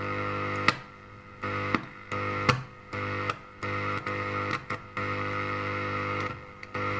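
LED TV loudspeakers giving out a steady buzzing hum that cuts in and out about five times, with a click at each change, as a resistor lead is touched to the audio amplifier's input points: the hum coming through shows the sound amplifier and speakers are working.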